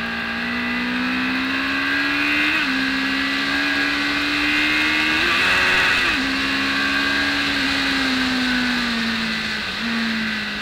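BMW K1200S inline-four engine pulling hard on track, heard from the bike itself: its note climbs steadily and drops at gear changes about two and a half and six seconds in, then falls slowly as the bike eases off, with a short jump up in pitch near the end.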